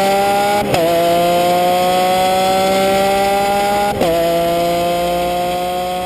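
A car engine accelerating through the gears: a steady, climbing whine that drops back at a gear change about a second in and again about four seconds in, then climbs once more and begins to fade out near the end.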